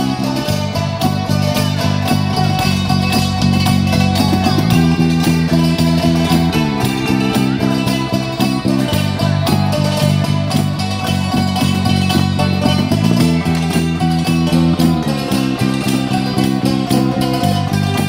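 Live street ensemble of three table zithers and an electric bass guitar playing a tune: quick, dense string notes over a bass line that moves to a new note every couple of seconds.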